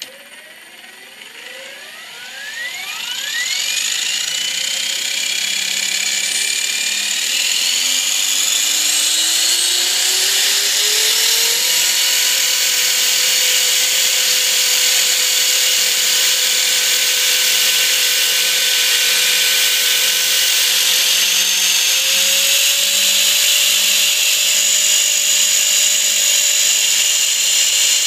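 Align T-Rex 500 electric RC helicopter's motor and rotor head spooling up: a whine that rises steeply in pitch over the first few seconds, climbs again until about twelve seconds in, then holds steady, with a faint low pulsing underneath. The servos glitch as it ramps up.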